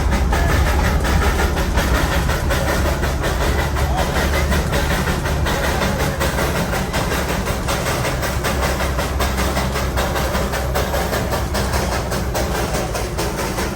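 Darjeeling Himalayan Railway narrow-gauge toy train running along the track: a steady low rumble with a rapid clatter of clicks from the wheels and cars.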